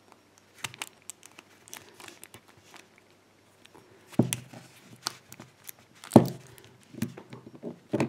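Small metallic clicks and scrapes of a shim and a knife blade being worked inside a brass Chubb padlock to push back its two spring-loaded locking bars, with louder knocks of the lock being handled about four and six seconds in.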